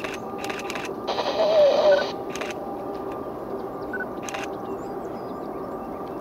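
Distant freight train on a trestle: a steady low rumble and hum. About a second in comes a louder warbling sound lasting about a second, and a few faint clicks follow.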